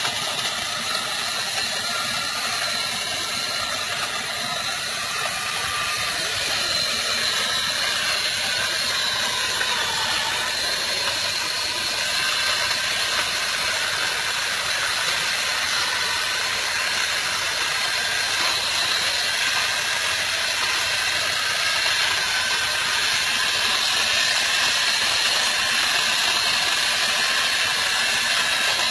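A crane truck's engine running steadily, with a constant hiss over it.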